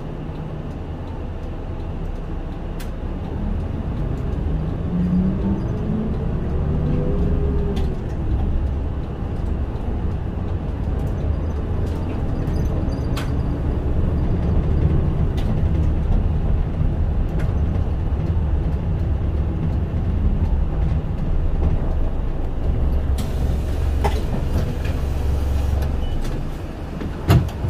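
Running sound from inside a Mitsubishi Fuso Aero Star diesel city bus: the engine pulls away with a rising pitch in the first several seconds, then settles into a steady low rumble while cruising. Near the end there is a few-second hiss of compressed air, then a single sharp knock.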